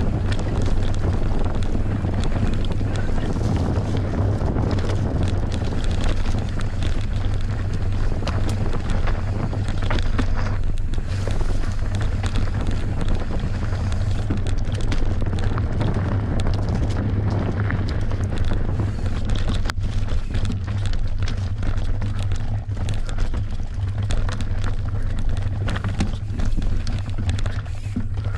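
Wind buffeting the microphone over a Merida One-Sixty enduro mountain bike running down a rough trail: tyre noise on dirt with frequent knocks and rattles from the bike.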